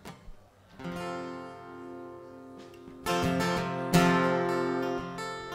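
Guitar strummed and left to ring: a chord starts about a second in, and two more strums come near three and four seconds in, the sound of a player checking the tuning between songs.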